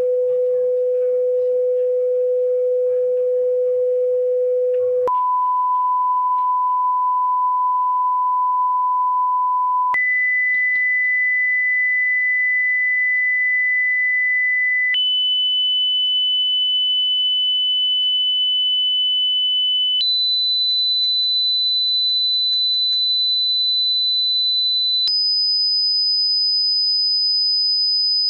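Hearing-test pure sine tones, each held steady for about five seconds and then stepping up in pitch: 500 Hz, 1 kHz, 2 kHz, 3 kHz, 4 kHz, and about 5 kHz near the end.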